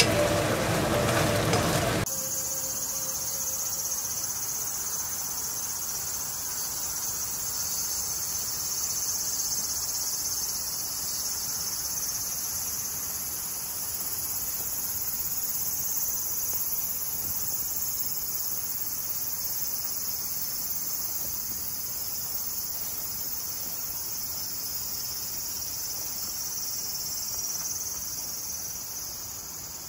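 A steady, high-pitched chorus of insects chirring in a grassy field. It starts abruptly about two seconds in, after a moment of music, and eases slightly near the end.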